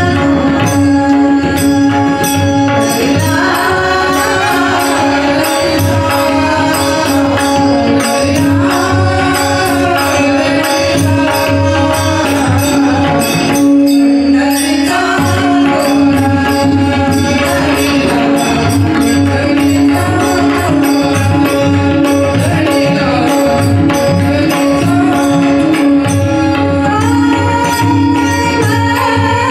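Marathi devotional abhang: a woman's voice singing the melody over a steady drone, with small hand cymbals (taal) and a drum keeping a fast rhythm. The singing drops out briefly about midway while the drone and percussion carry on.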